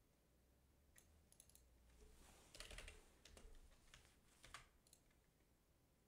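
Faint typing on a computer keyboard: scattered key presses, with a quick run of them from about two and a half to four and a half seconds in.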